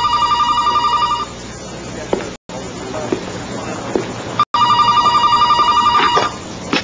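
Corded desk telephone ringing with a rapid trill: one ring ends about a second in, and a second ring of about two seconds starts about four and a half seconds in.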